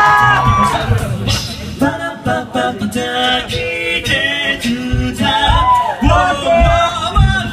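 Music: a man singing over a band with a low bass line and beating drums.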